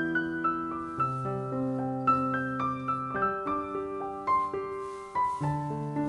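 Solo piano background music: a melody of single notes, about two a second, over long-held bass notes.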